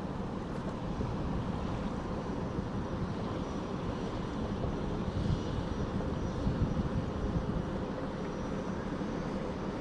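Steady low drone of a river barge's engine.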